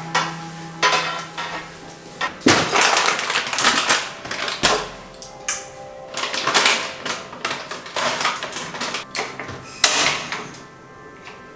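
Household items being handled and set down: an irregular run of knocks, clatters and scrapes that dies away near the end, over soft background music.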